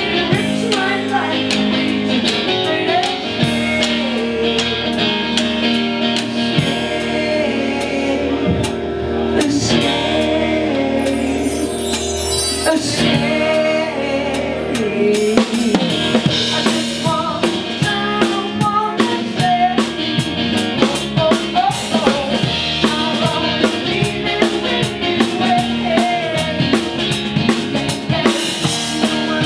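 Live band playing a song: a drum kit keeps a steady beat on bass drum and snare, under held instrument chords and a wavering melody line.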